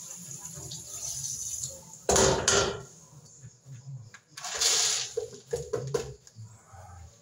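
Corn kernels being washed at a kitchen sink: water and grain splashing in two loud bursts, about two seconds in and again near five seconds, with a few clinks of a plastic cup against pots and a blender jar.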